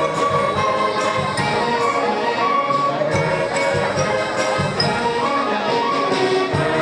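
A middle school band playing a piece, with sustained chords and a steady beat.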